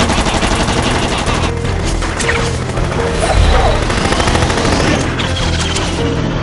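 Cartoon action sound effects: a rapid volley of missile fire, with rockets whistling past and a heavy boom about three and a half seconds in, over an orchestral score.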